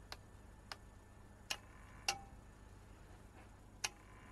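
Five sharp, faint clicks, irregularly spaced and loudest about a second and a half and two seconds in, as the switch levers of a DIN-rail modular fuse holder are flipped on to power a repaired welding inverter through a series light bulb.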